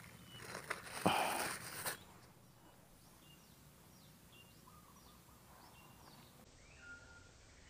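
Crinkling and rustling of a plastic bag being handled for about two seconds. After that it is faint, with a bird calling in a series of short chirps.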